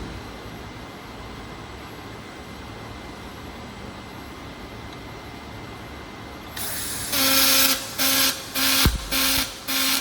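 Robotic arc welding: after a steady low hum, a hiss starts at about six and a half seconds, and from about seven seconds the welding arc buzzes loudly in pulses, about two a second, with a low thump near the end.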